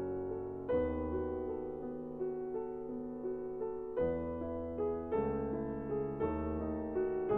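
Slow, soft lofi piano music: sustained chords that ring out, with a new chord struck every one to three seconds and no drums.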